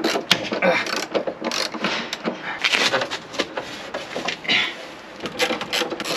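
Socket ratchet clicking in quick runs as tailgate hinge bolts are undone.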